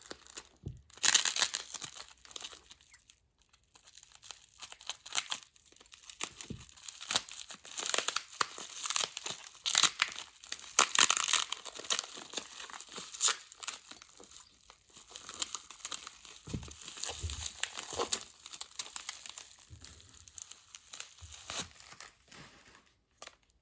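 Plastic packaging being crinkled, crumpled and torn open by hand, in irregular bunches of crackling with short pauses between.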